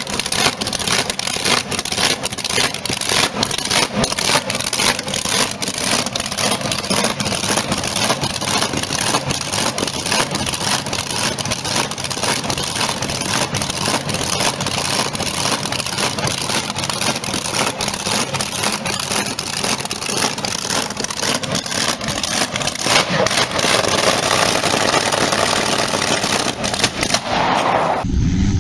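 Supercharged V8 boat engine with open headers running loud and steady, with a dense crackle from the exhaust. Just before the end it cuts to a different engine's drone.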